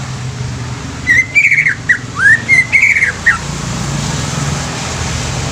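Cucak ijo (green leafbird) singing a quick phrase of about seven slurred, whistled notes that bend up and down, starting about a second in, over a steady low hum and hiss.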